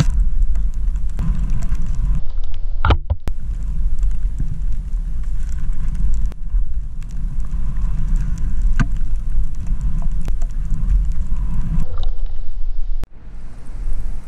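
Wind rumbling on a worn action camera's microphone while skiing down through deep powder, with the skis hissing through the snow. There are a couple of sharp knocks, about three seconds in and again near the end.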